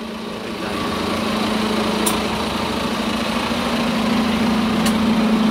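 A road vehicle's engine idling with a steady hum that grows slowly louder, and two faint clicks.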